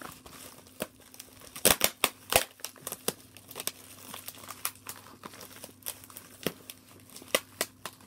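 Packing material crinkled and torn by hand as a mailed package of VHS tapes is unwrapped: irregular crackles and rustles, with a burst of sharper snaps about two seconds in.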